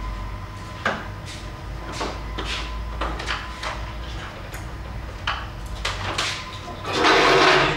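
Scattered sharp knocks, steel-tip darts striking a dartboard among them, with a faint steady hum in a workshop. A loud rushing noise lasting under a second comes near the end.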